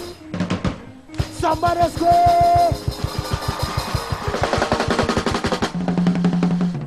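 Live gospel praise band music led by a drum kit: fast, even snare strokes build into a roll through the middle, over a steady bass and held pitched notes.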